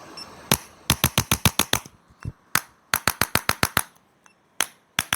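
Sharp clicks in two quick runs of about eight or nine, roughly eight a second, with single clicks before, between and after the runs.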